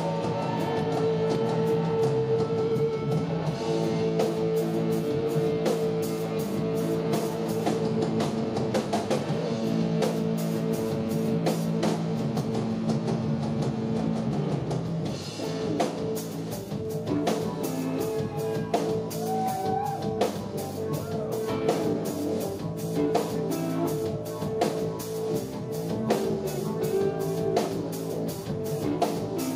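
Live rock band playing: electric guitar, bass and keyboard holding chords over a steady drum-kit beat. About halfway through, the low held chord stops and the music thins out while the drums keep time.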